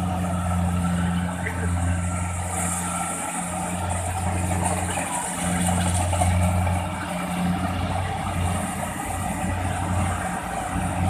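Rice harvester's engine running steadily, a low drone that wavers slightly in strength, with the machine's working noise over it.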